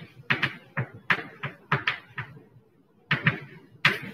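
Chalk writing on a blackboard: an irregular run of sharp taps and short scrapes as letters are written, with a pause of about a second midway.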